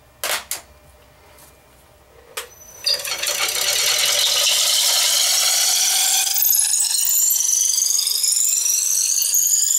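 A few sharp metallic clicks at the lathe chuck. About three seconds in, a Veritas dowel maker starts cutting a spinning square wood blank down to a 3/8-inch dowel: a loud, steady rasping whir with a whine that rises in pitch from about six seconds in.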